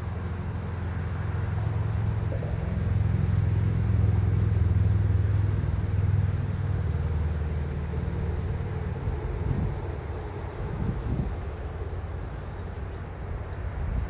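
A low rumble that builds over a few seconds to a peak about four to five seconds in, then slowly fades.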